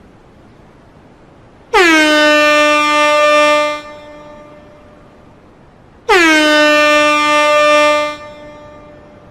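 Air horn sounding two blasts of about two seconds each, a few seconds apart. Each blast starts with a quick downward slide in pitch, then holds one steady, loud tone.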